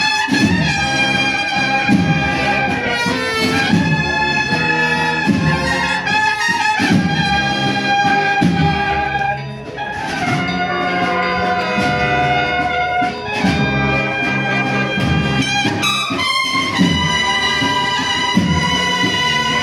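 Brass band music, with trumpets carrying sustained melody notes over a repeating bass line.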